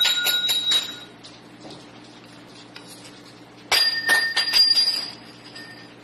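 Small metal objects on a tabletop clinking and ringing with a clear, bell-like tone, twice: once at the start, fading within about a second, and again about four seconds in with several quick knocks, ringing for about a second and a half.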